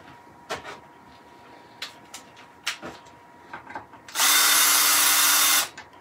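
A few light knocks and clicks of handling, then a cordless drill-driver runs steadily for about a second and a half and stops abruptly, opening up the wooden router box.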